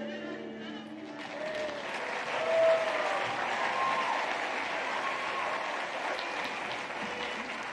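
The last held note of a song ends about a second in, then the audience applauds, with a few voices calling out over the clapping.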